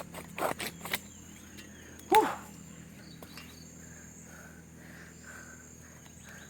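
Outdoor insect chorus with a steady high-pitched drone and faint regular chirps, broken by a few sharp knocks in the first second and one brief loud call about two seconds in.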